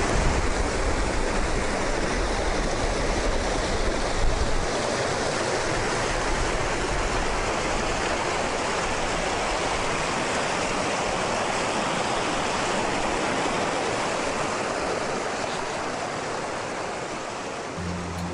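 Mountain brook splashing and rushing steadily, which the hiker takes to be the young Inn near its source. A low rumble sits under it for the first four seconds or so, and the water sound fades slowly near the end.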